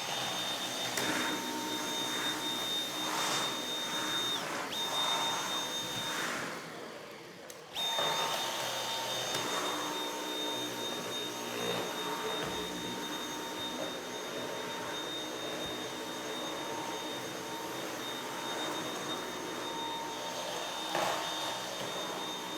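Vacuum cleaner running with a steady high whine. It switches off about six and a half seconds in and starts again about a second later.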